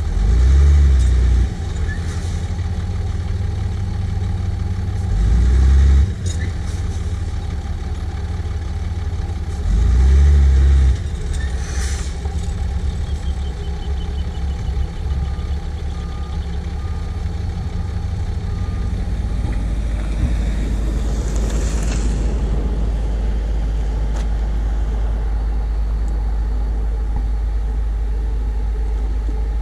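Tipper truck's diesel engine revving up three times, about five seconds apart, while it tips its load of earth. Later comes a short hiss, then a steady low diesel drone from the JCB 436ZX wheel loader's Perkins 1006.6T engine.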